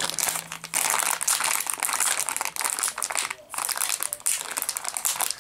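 A foil blind-bag pouch crinkling and crackling as it is squeezed and tugged with hands and teeth in an effort to tear it open, with a short pause about three and a half seconds in.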